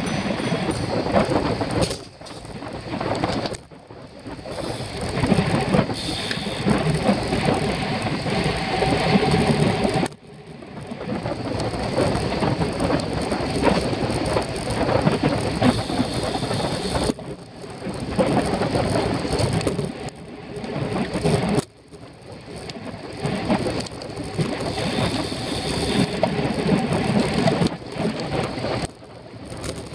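Wind rushing over the microphone of a camera on a moving racing bicycle, a loud rumbling noise that drops away briefly several times as the airflow eases.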